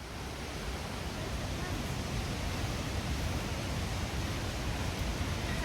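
Steady rushing of a waterfall and torrent in a rocky gorge, growing a little louder over the first couple of seconds.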